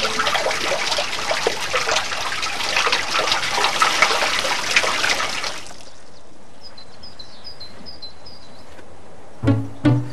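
Water pouring from a plastic watering can, trickling and splashing into a garden fountain's basin, stopping about five and a half seconds in. Faint birdsong follows, with a couple of short voice sounds near the end.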